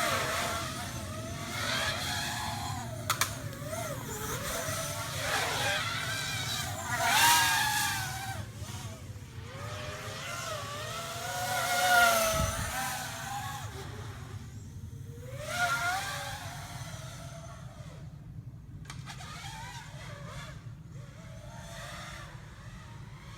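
Motors of a Vortex 250 FPV racing quadcopter whining, the pitch rising and falling with the throttle. It swells loudest three times, then dies down towards the end.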